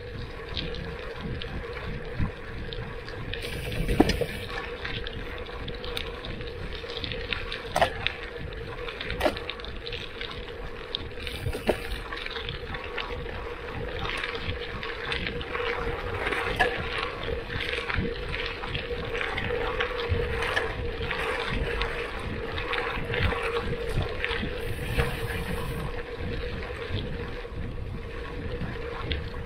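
Gravel bike rolling fast on a packed dirt road: a steady rumble of tyres on dirt with wind noise and a steady hum, broken by a few sharp knocks as the bike hits bumps, the first about four seconds in.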